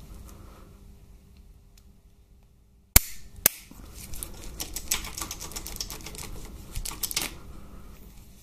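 Click-type torque wrench on a socket and universal joint, tightening a head steady bracket bolt to 54 Nm. There is a sharp click about three seconds in and another just after, then a fast run of ratchet clicks that stops a second before the end.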